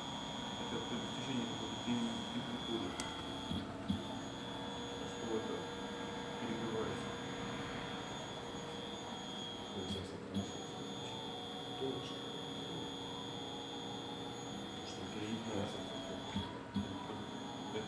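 Steady high-pitched whine from a Yaskawa SGDB-10VNY1 AC servo drive and its motor running on a test bench. The whine drops out briefly three times, about six seconds apart, over fainter steady hums.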